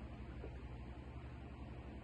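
Quiet room tone with a steady low hum and no distinct sound.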